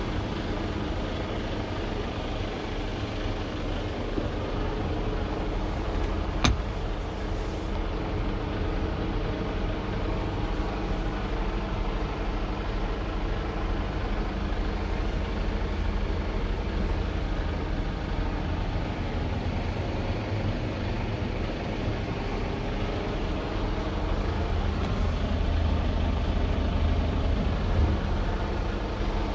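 Scania R tractor unit's diesel engine idling steadily, heard from inside the cab, with a single sharp click about six seconds in.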